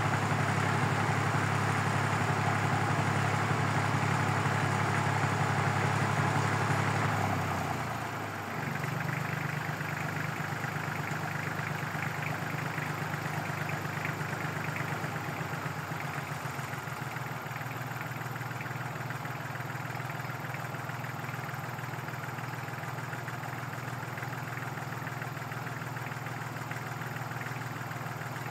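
Tractor engine running steadily, then easing down about seven seconds in to a quieter, steady idle.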